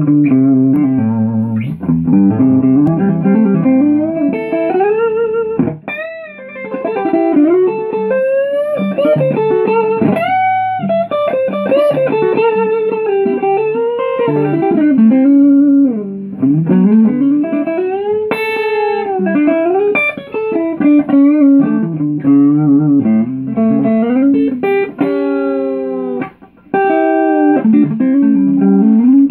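Gretsch Electromatic Jet electric guitar played through a Magnatone 150 Maestro tube amplifier, sounding through a Jensen P15N 15-inch speaker that rests unmounted on its baffle board. A single-note lead line, with many strings bent up and let back down.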